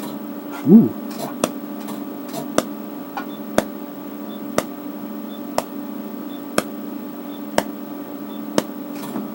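Flash-lamp-pumped Nd:YAG laser firing about once a second, each pulse a sharp snap, over a steady hum from the unit's cooling pump. A brief loud vocal sound about a second in.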